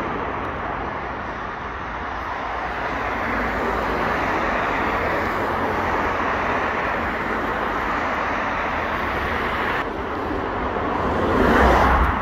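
Steady road traffic noise with the low engine rumble of a lorry waiting to pull out. About ten seconds in there is a sudden break, then a vehicle passes close, getting louder and falling away near the end.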